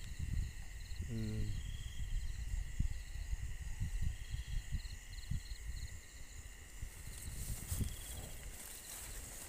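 Night insects chirping in chorus: steady high trills with a repeating pulsed chirp above them. Under them are irregular low thumps and rustling of leaves brushed by someone walking through dense undergrowth.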